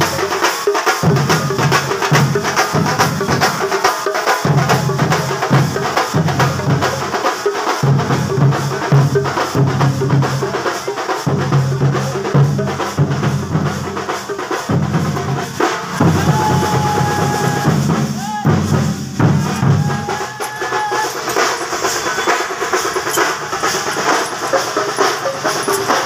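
A street procession drum troupe beats drums with sticks in fast, loud, dense drumming with heavy low beats. The drumming thins out about twenty seconds in. A short, steady high tone sounds a few times shortly before that.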